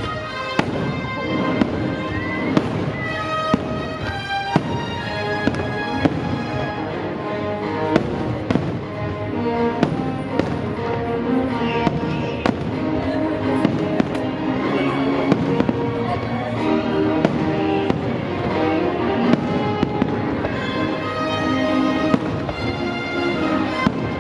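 Aerial fireworks shells bursting in an irregular string of sharp bangs, about one a second, over show music playing throughout.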